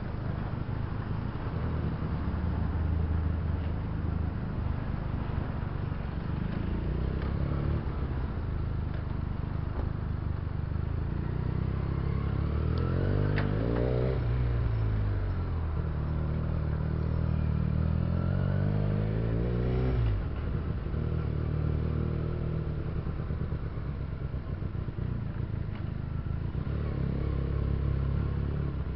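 Benelli TNT300's parallel-twin engine running in slow city riding, with road noise. Its revs rise and fall a few times midway, then drop off sharply about two-thirds of the way through.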